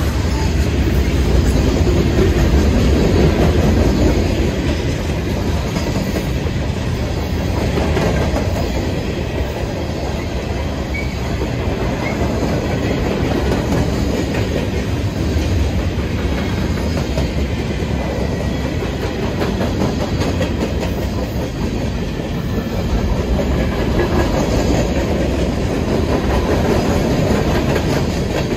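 Cars of a manifest freight train rolling past: a steady rumble of steel wheels on rail with the clickety-clack of wheels over the rail joints.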